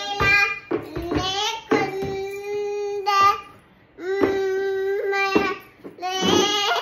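A toddler singing in long, drawn-out held notes, several phrases with short breaks between them.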